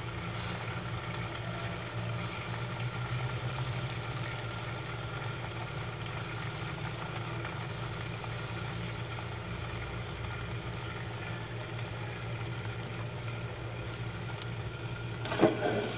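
Pan of gyoza steaming and frying in a little water under a glass lid: a steady low hum with a faint hiss. About a second before the end comes a sharp clack as the glass lid is lifted off.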